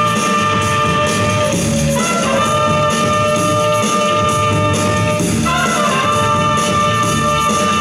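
Loud recorded music for a breaking battle: brass horns holding long notes that break and restart twice, over a steady bass line, played through loudspeakers.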